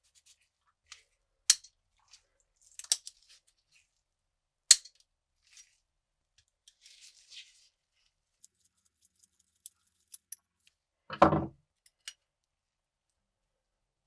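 Small metal parts being handled: scattered sharp clicks and ticks, and one short, heavier clatter about eleven seconds in, the loudest sound.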